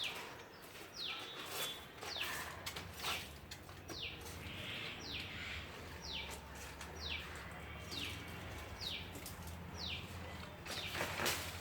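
A bird calling over and over with short, quickly falling notes, about one a second, with a few sharp rustles or snaps in between.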